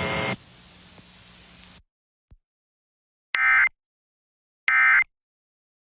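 Emergency Alert System end-of-message data bursts: two short, identical, buzzy digital bursts a little over a second apart, the coded signal that closes an alert broadcast. Before them a low radio hiss cuts off into silence.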